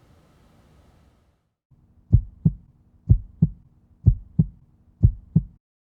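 Heartbeat sound effect: four double thumps (lub-dub), about one pair a second, over a steady low hum. Before it, the faint running sound of the ceiling fan stops about a second in.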